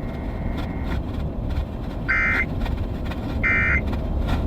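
Two short bursts of the NOAA Weather Radio SAME end-of-message code, a harsh digital warble about a second and a half apart, over steady low background noise. The bursts signal the end of the weekly test alert.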